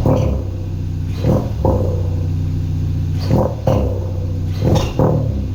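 2016 Hyundai Veloster Turbo R-Spec's turbocharged 1.6-litre four running steadily, with a short sharp chirp every second or so, some in quick pairs: the chirping noise the owner is showing.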